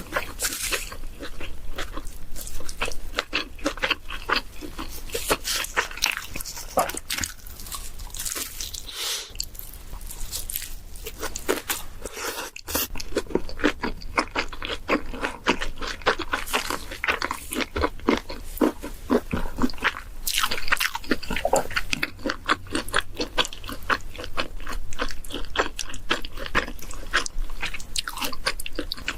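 Close-miked eating: continuous biting and chewing, with many quick crisp clicks and crackles as the food is chewed.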